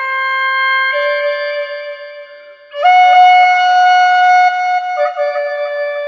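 Native American flute playing a slow melody of long, held notes. The sound fades almost away for a breath about two and a half seconds in, then comes back louder on a higher note held for about two seconds before stepping down.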